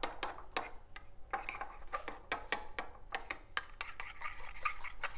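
A metal spoon stirring a wet lemon, mustard and spice marinade in a small ceramic bowl: rapid, irregular clinks of the spoon against the bowl, with scraping between them.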